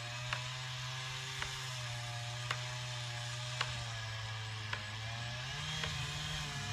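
A steady mechanical hum with a wavering higher tone over it and a sharp click about once a second, growing a little louder near the end.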